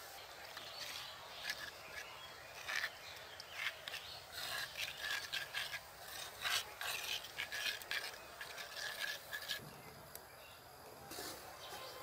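Metal spoon stirring wet spice paste in a clay bowl, a quick uneven run of scrapes against the earthenware, some with a squeak, stopping about ten seconds in.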